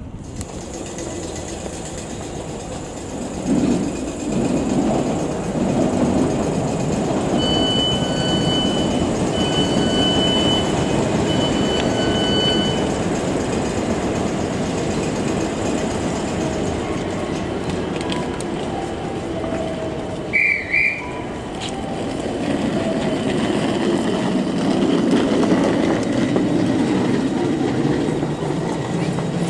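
Electric train running on the tracks, a steady rumble of wheels and motors that builds about three seconds in. Three short high beeps sound in the middle, and a brief shrill whistle about two-thirds of the way through.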